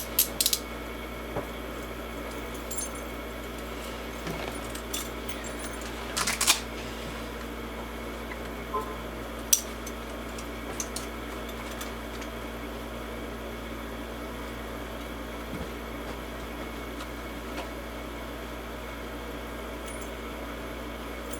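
Metal handcuffs being handled, giving a few scattered clicks and clinks: a quick cluster at the start, a short burst about six seconds in, and single ticks later. A steady background hum runs underneath.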